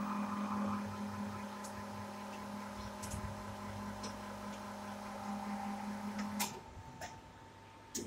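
Vertical injection moulding machine for power-cord plugs running mid-cycle: a steady machine hum that stops about six and a half seconds in with a sharp click, after which it is quieter with a few lighter clicks.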